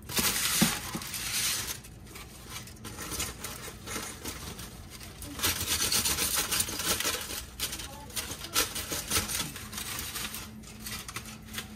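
Kitchen knife cutting and scraping along a whole striped bass as it is filleted, with the aluminium foil under the fish crinkling and rustling. Two longer spells of rustling and scraping, at the start and again about halfway, with small clicks and scrapes between them.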